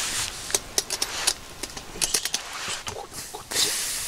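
A large metal cooking pot being handled over a wood fire: several sharp clanks of its lid and body. A louder steady hiss starts suddenly about three and a half seconds in, as the steaming pot is lifted.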